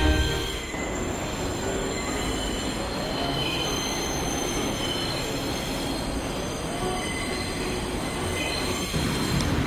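A steady rumbling noise with thin high squealing tones above it, of the kind a train or subway car makes while running.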